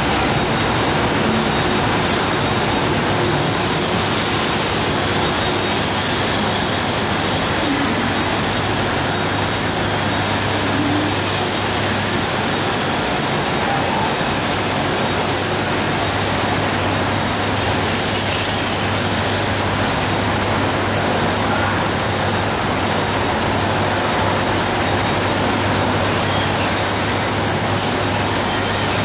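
Steady high-pressure hiss of a water jet cutting machine at work, over a steady low hum of machinery.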